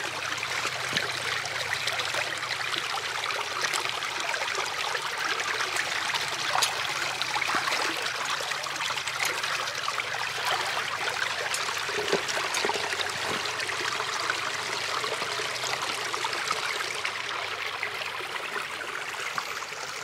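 Water running steadily through a beaver dam, with scattered splashes and cracks of sticks as branches are pulled out of the dam by hand.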